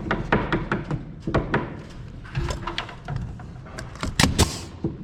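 Irregular wooden knocks and clacks as trim boards are handled and set against the frame, with a louder cluster of knocks about four seconds in.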